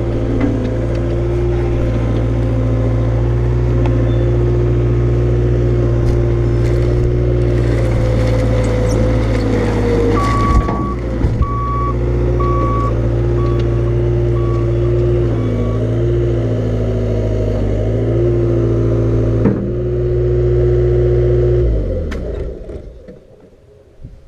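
Vehicle engine running steadily close by, its pitch dipping and recovering a few times, with a run of about six short high beeps about ten seconds in. The engine shuts off near the end.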